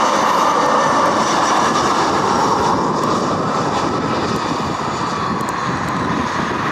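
Jet airliner's engines running during landing: a loud, steady rush of noise with high whining tones, easing slightly after about two seconds.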